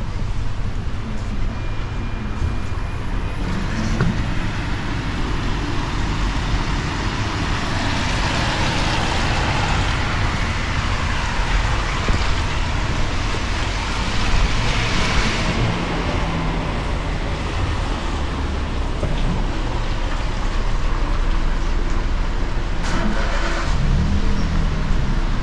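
Road traffic going by, with a steady low rumble and a swell of tyre hiss on the wet road as vehicles pass, loudest between about 8 and 16 seconds in.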